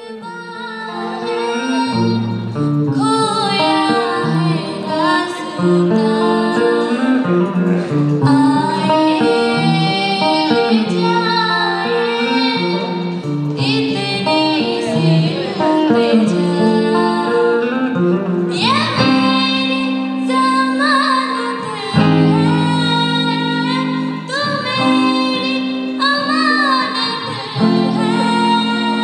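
Live music through a PA: a woman singing a song with electric guitar accompaniment. The music fades in over the first couple of seconds.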